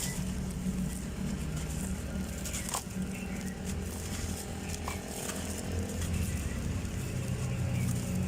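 Dry black sand-cement shapes crumbling, with scattered sharp crackles and crunches over a steady low hum.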